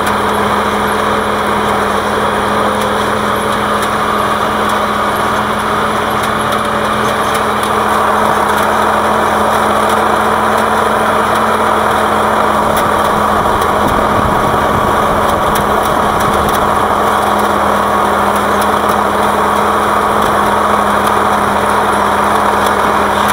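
Tractor diesel engine running steadily, heard close up from the tractor the camera is mounted on, with a constant low hum. It gets slightly louder about eight seconds in.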